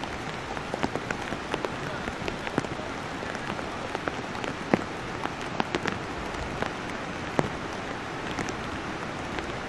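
Downpour: the steady hiss of heavy rain, with frequent sharp drop strikes scattered through it, two louder ones about halfway and about three-quarters through.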